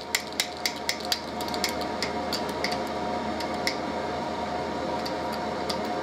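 Light clicks and ticks from a hydraulic cable crimper as its pump handle is worked to close the dies, several in quick succession at first, then sparser. Underneath runs the steady hum of a workshop heater.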